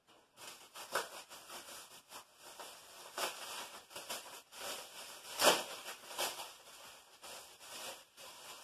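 Plastic packaging crinkling and rustling in the hands as a wrapped piece is unwrapped, in irregular crackles, with one sharper crackle about five and a half seconds in.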